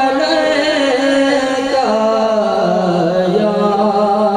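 A group of men chanting the durood together in a slow, drawn-out melody, the voices holding long notes that slide gently in pitch.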